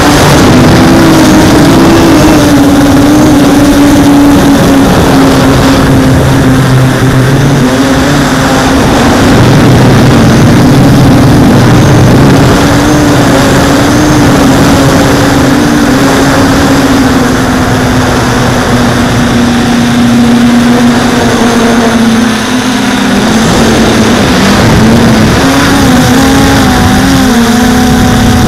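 Armattan 258 carbon-fibre quadcopter's electric motors and propellers in flight, a loud steady buzz whose pitch wavers up and down with the throttle, heard up close through the camera mounted on the quad.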